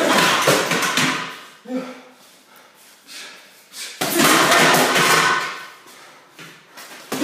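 Gloved punches landing on a hanging heavy bag in flurries: one at the start, another about four seconds in, and a third beginning at the very end, each lasting about a second and a half, with quieter gaps between.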